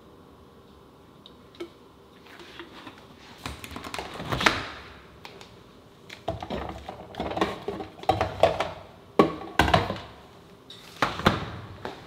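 Liquid poured from a plastic bottle over ice cubes in a glass, building to a peak about four and a half seconds in. Then a series of sharp knocks and clunks as the bottle is set among other bottles in the door shelf of a Mitsubishi 705-litre refrigerator, with the loudest thuds as the refrigerator door is shut near the end.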